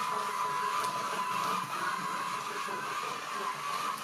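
Small electric gear motors of a Smartibot drawing robot whirring steadily as it drives and turns across paper, with a thin steady whine.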